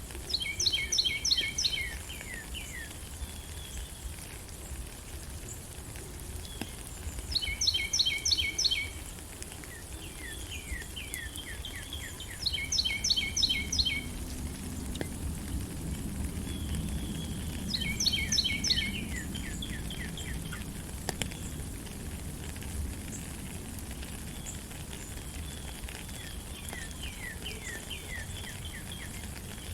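Steady rain hiss in a forest while a bird sings a short phrase of rapid repeated high notes, four times about five to six seconds apart. Fainter, lower notes follow each phrase.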